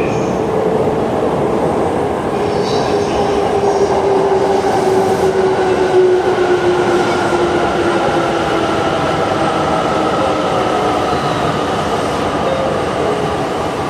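Electric limited express train pulling into an underground station platform, its motor whine falling slowly in pitch as it brakes over the rumble of wheels on the rails. Brief high squeals come about three seconds in.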